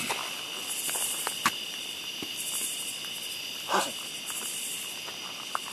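Steady high-pitched chorus of night insects, several shrill tones held without a break. A sharp click cuts in about a second and a half in, and a short louder sound comes just before the four-second mark.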